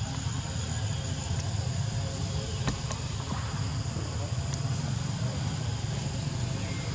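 Insects shrilling steadily in high, continuous tones over a low, even rumble, with a few faint clicks.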